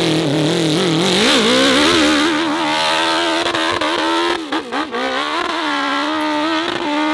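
Hill-climb motorcycle engine revving hard under load up a steep dirt slope, the revs rising and falling as the throttle is worked. A few brief throttle cut-offs come about four and a half seconds in.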